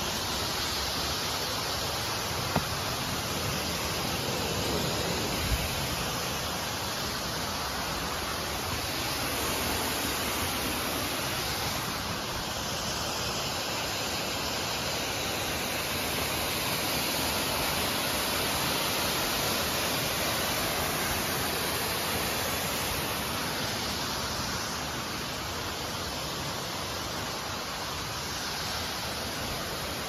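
Steady, even rush of a waterfall's falling water, with two brief sharp knocks in the first six seconds.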